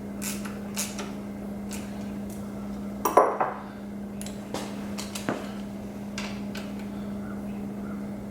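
Metal hand tools clicking and clinking against a transmission case while a band adjuster is worked, with one louder ringing clank about three seconds in. A steady low hum runs underneath.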